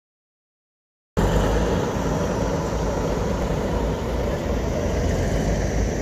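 Heavy construction machinery engines running at idle, a steady rumble that starts abruptly about a second in.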